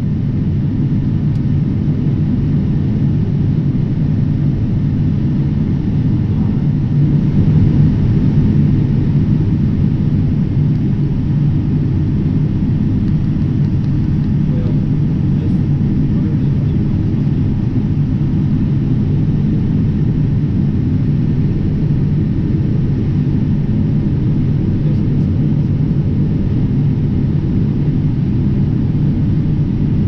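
John Deere S780 combine running steadily under load while harvesting corn: a deep, even engine and machinery rumble. It swells slightly about eight seconds in.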